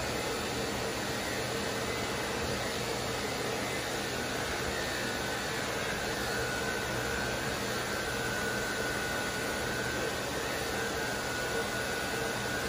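Electric dog grooming clipper running with a steady whir as it shaves a Chow Chow's thick body coat.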